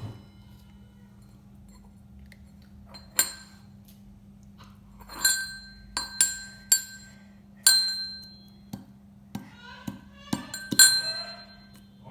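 Pestle pounding ginger into a paste in a mortar: about a dozen irregular strikes, each with a short ringing clink.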